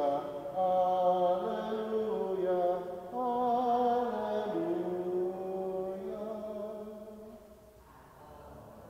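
Solo cantor chanting unaccompanied: one voice in slow held notes that step up and down in pitch, dying away in the last two seconds or so.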